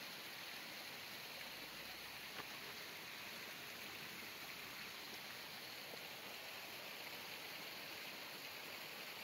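Faint, steady rush of flowing creek water.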